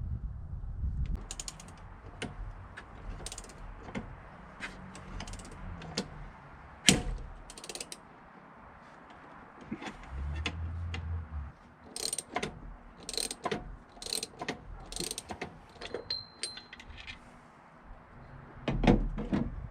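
Irregular metallic clicks and clanks of hand tools working on a supercharger pulley, with some ratchet-like clicking.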